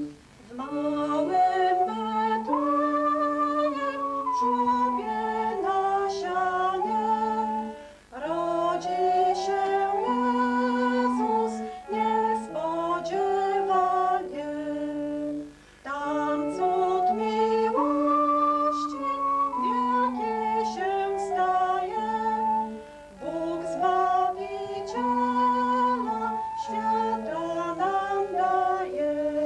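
A woman singing a Christmas carol solo, accompanied on electronic keyboards, in phrases of held notes with short breaths between them.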